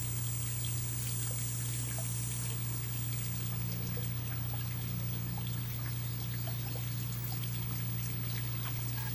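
Continuous trickle of running water with small scattered crackles, over a steady low hum.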